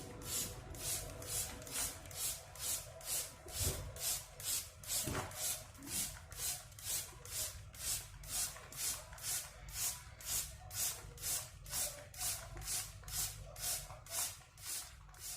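Hand-pump spray bottle on its mist setting, squeezed over and over to soak a budgerigar: a short hiss about twice a second, with a couple of soft knocks a few seconds in.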